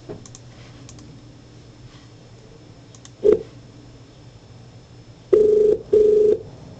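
A phone keypad tone sounds once about three seconds in. Near the end comes the telephone ringback tone: a double ring, two short tones with a brief gap, as the dialled call rings through.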